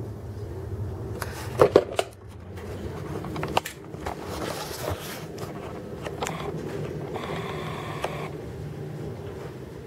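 Handling noise from a handheld camera being moved: a few sharp clicks and knocks about two seconds in and another a little later, over a steady low room hum.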